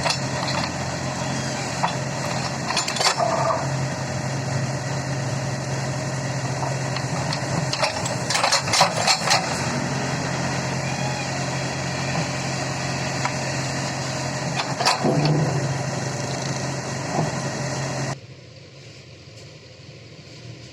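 Backhoe loader's diesel engine running steadily, with several sharp knocks of the machine working: once about 3 seconds in, a cluster around 8 to 9 seconds, and again around 15 seconds. Near the end the engine sound cuts off suddenly to a much quieter background.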